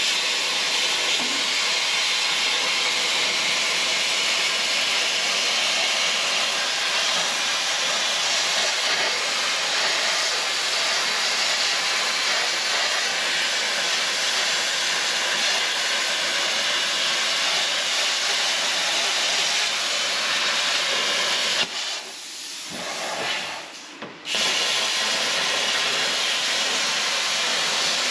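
Plasma cutter hissing steadily as its torch cuts through the rusted steel floor pan. The cut stops for about two seconds near the end, then the hiss starts again.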